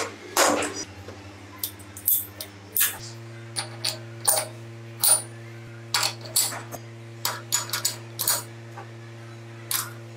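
Steel gears of a vintage Vespa gearbox cluster clinking as they are slid onto their shaft and seated against one another: a string of short, sharp metallic clicks at uneven intervals, over a steady low hum.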